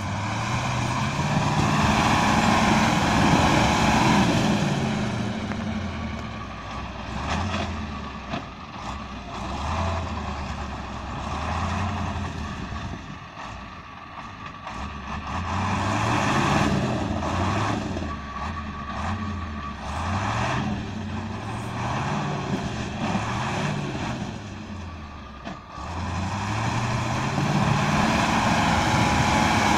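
KAMAZ truck's diesel engine revving up and down again and again under load as the truck forces its way through deep slushy snow ruts. It is loudest in the first few seconds and again near the end, with a lull around the middle.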